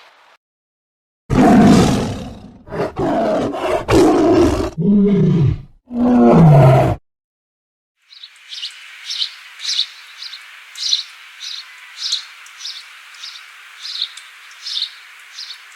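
A big cat roaring: a series of loud roars ending in deep calls that fall in pitch. After a short pause comes a different clip: a high chirp repeated about twice a second over a steady hiss.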